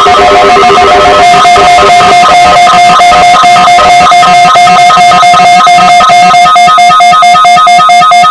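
Weather radio receivers sounding their electronic alert alarms, tripped by a NOAA Weather Radio test: loud, overlapping beeping on a couple of pitches, steady at first and then pulsing rapidly from about a second in.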